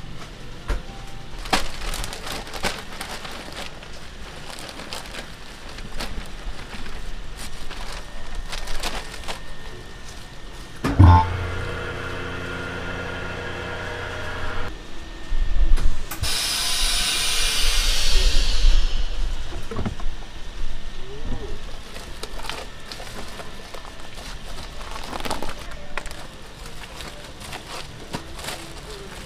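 Fujee Vac HFV chamber vacuum sealer running a cycle. A steady pump hum comes in with a clunk about 11 seconds in and stops after about four seconds. A second or so later there is a loud hiss of about three seconds as air rushes back into the chamber after the bag is sealed. Light clatter of handling goes on around it.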